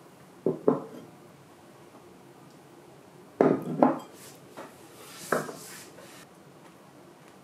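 Glass and tableware knocking and clinking on a wooden table: two quick knocks about half a second in, a cluster of knocks after about three and a half seconds, and another knock after five seconds.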